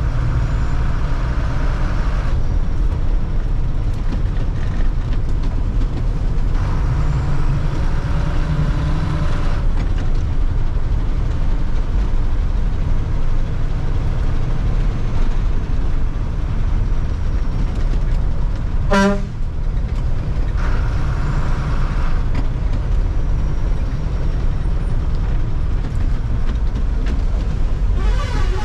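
Bus engine and road noise heard from inside the driver's cab, running steadily on a winding road, with one short horn toot about two-thirds of the way through.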